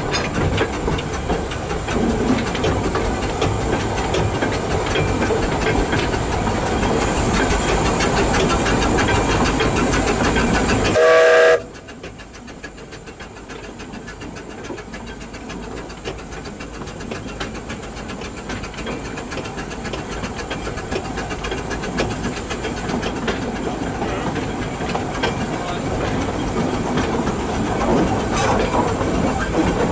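Narrow-gauge Hunslet steam locomotive Trankgil working a train, its exhaust and running gear making a loud, steady noise. About eleven seconds in it sounds a short whistle. Then the sound drops sharply and slowly builds back up to full strength near the end.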